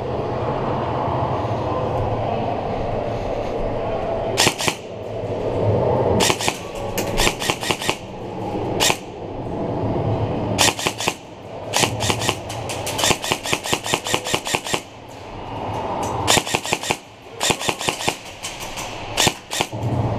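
Airsoft electric rifles firing, in short bursts and rapid full-auto strings of sharp clicks, starting about four seconds in and coming in several bursts through the rest of the stretch, over a steady rustle of movement.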